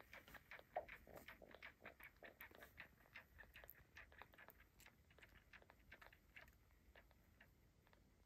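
Kitten suckling on a bottle nipple: faint quick wet clicks and smacks, several a second, thinning out near the end.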